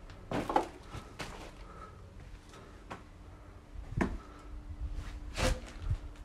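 Irregular footsteps and knocks on a rubble-strewn floor, about half a dozen sharp steps or bumps spread unevenly, the clearest near the start, about four seconds in and about five and a half seconds in.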